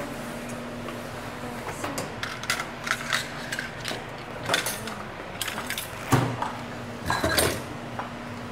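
Dishes and cutlery clinking and knocking at a kitchen sink and counter: a run of light clinks and knocks, with a louder knock about six seconds in, over a steady low hum.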